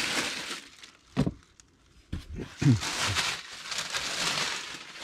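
White tissue paper crinkling as it is handled around a plush toy, with two dull knocks about a second and a half apart as things are set into a cardboard shipping box.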